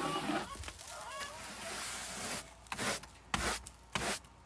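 Aspen wood shavings being scraped and brushed out of a wooden nesting box. A continuous rough scraping goes on for the first couple of seconds, then several short, sharp strokes follow.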